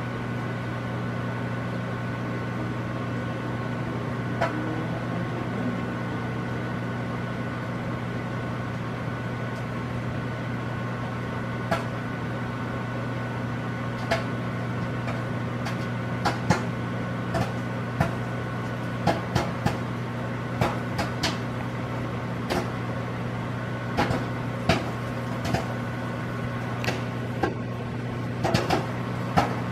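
A Whirlpool microwave oven runs with a steady hum while popcorn kernels begin to pop inside it. A few scattered pops at first come more and more often in the second half, as popping gets under way.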